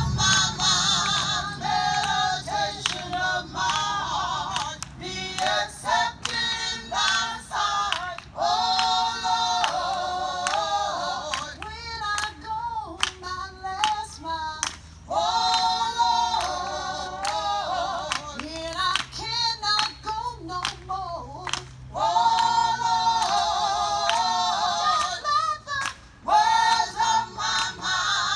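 A small group of singers, mostly women's voices, singing together into hand-held microphones.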